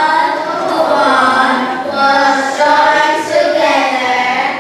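A group of children singing a song together, in long held notes with short breaks between phrases.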